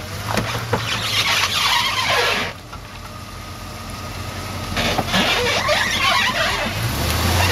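Lifted Jeep Grand Cherokee WJ crawling through deep muddy ruts: its engine runs low under load while repeated squeals come from the truck as it works over the ruts. It goes quieter for a couple of seconds partway through, then the engine picks up again near the end.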